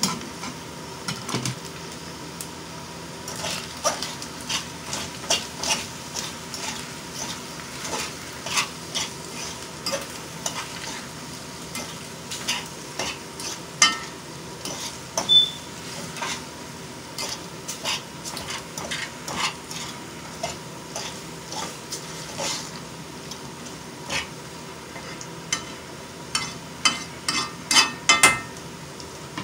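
Metal utensil stirring shrimp scampi in a stainless steel pan, knocking and scraping against the pan at irregular intervals over the sizzle of the food heating on the burner. Near the end a quick run of louder knocks rings out against the metal.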